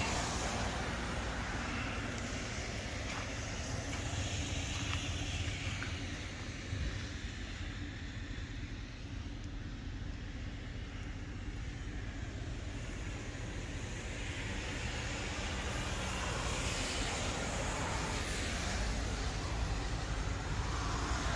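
A vehicle engine idling, a steady low rumble, under a broad outdoor hiss that swells a little near the start and toward the end.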